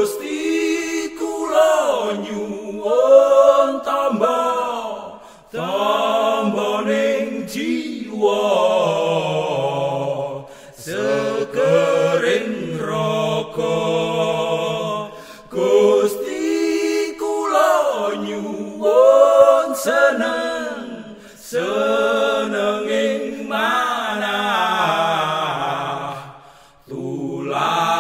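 Unaccompanied voice chanting a slow, melismatic melody, in long gliding phrases of a few seconds each with short breaks between them.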